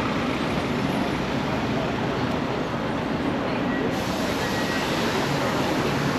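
Steady city street traffic noise: cars and other vehicles running along a busy downtown road, an even rumbling hum with no distinct events.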